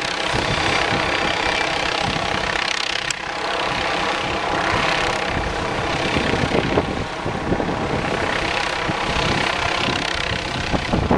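Police helicopter flying overhead: a steady rotor and turbine noise whose brightness swells and fades every few seconds as it passes.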